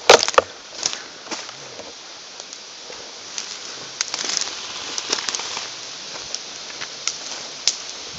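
Airsoft gunfire: a quick burst of sharp snaps at the very start, then scattered single sharp cracks about once a second.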